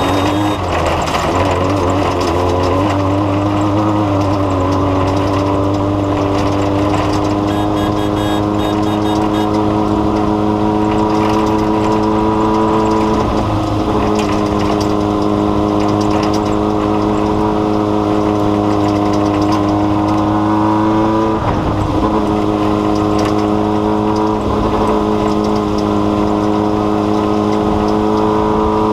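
A steady, droning motor sound that holds one pitch, stepping slightly up near the start and faltering briefly twice.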